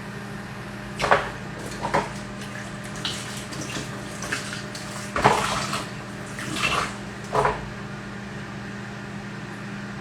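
Kitchen handling sounds: several short, irregular knocks, scrapes and splashy rustles of utensils and a plastic bowl, the loudest about five seconds in, over a steady low hum.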